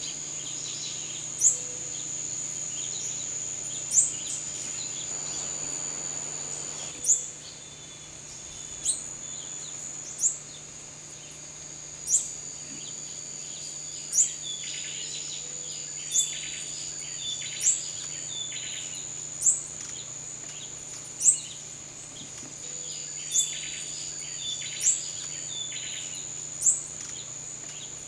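Tropical forest ambience: insects keep up a steady high-pitched drone, a sharp rising chirp repeats about every two seconds, and birds call with short runs of chirps now and then.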